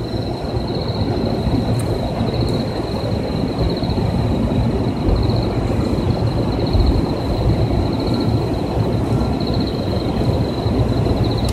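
Steady low rumble of a 185-series electric train approaching along the track. A steady high pulsing chirp sounds above it.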